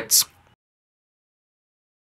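A man's narration ending on the hissed 's' of 'separates', then complete digital silence.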